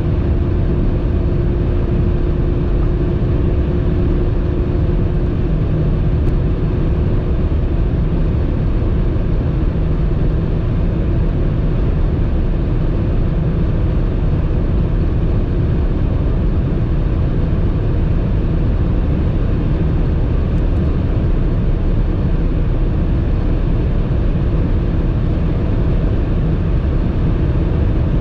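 Steady drone of engine, wind and tyre noise inside the cabin of a BMW 530d xDrive Touring (F11), its 3.0-litre straight-six diesel pulling hard at about 240–256 km/h. About five seconds in, the engine note drops as the eight-speed automatic shifts from seventh into eighth gear.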